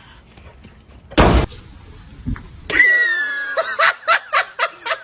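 A single loud bang about a second in, then a high, slightly falling squeal followed by a rapid run of laughter.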